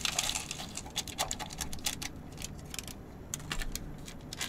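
A small plastic sachet of dried vegetable flakes crinkling as it is shaken out into an instant noodle cup, the flakes landing with light rattling ticks. The crackles are busiest in the first two seconds and thin out after.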